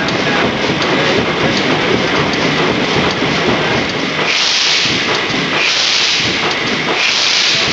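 Vintage multi-cylinder stationary diesel engine running with a steady, dense mechanical clatter. About four seconds in, a loud hiss begins, coming in bursts of about a second, roughly every second and a half.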